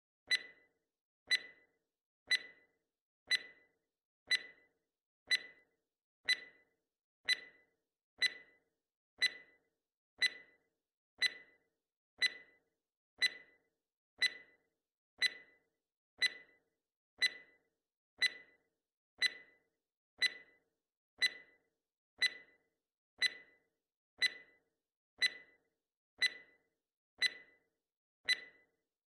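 Countdown-timer tick sound effect, one sharp tick a second, evenly spaced, counting down the seconds left to answer a quiz question.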